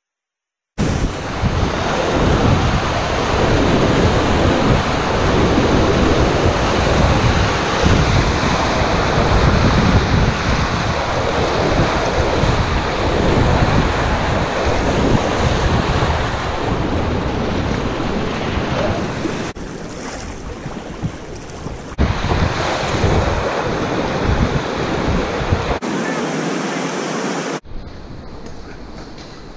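Whitewater rapid rushing and splashing loudly around a packraft as it runs down through the waves. It cuts in suddenly about a second in and drops to a much quieter low noise near the end.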